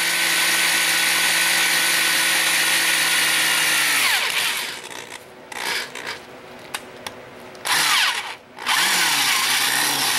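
Electric drill with a 1/4-inch bit boring a pilot hole in a tractor's cast-iron transmission housing. The motor runs steadily, winds down about four seconds in, runs in short stop-start bursts, then runs again from about eight seconds with its speed rising and falling.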